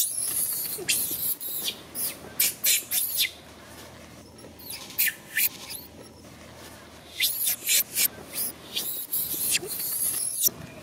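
Long-tailed macaques screaming: a long shrill scream at the start, then bouts of short, very high-pitched shrieks that come and go in clusters.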